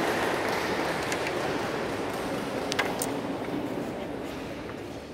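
Carrom striker flicked into the coins: two sharp clicks about a quarter-second apart near the middle, over a steady background noise.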